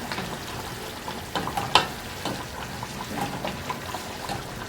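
Fish stew cooking in a pot, a steady sizzle with scattered sharp crackles, the loudest a little under two seconds in.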